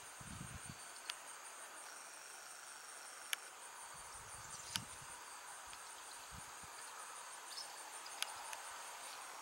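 Faint, steady, high-pitched insect trilling, with a few short sharp ticks scattered through.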